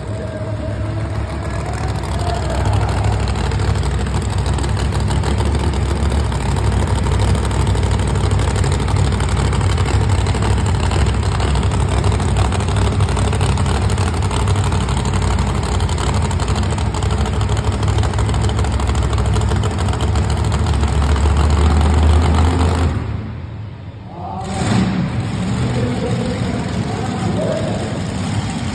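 Monster truck engine running loud, with a heavy low drone that swells just before the sound drops away sharply for about a second near the end, then picks back up.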